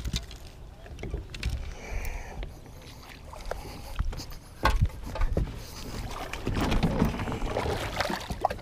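Water lapping against a fishing boat's hull, with scattered knocks and clicks of tackle being handled on board, and a thicker stretch of noise near the end.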